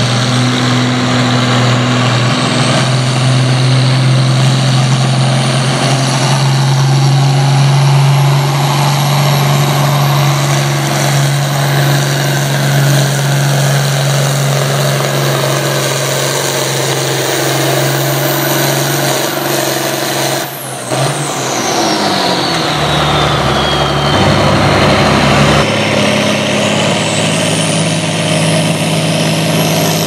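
Red International Harvester Farmall pulling tractor's diesel engine running hard under load as it drags a weight-transfer sled, with a steady high whine over the engine note. About two-thirds of the way through, the sound breaks off briefly. The engine note then drops while a whine falls away, and the engine climbs again near the end.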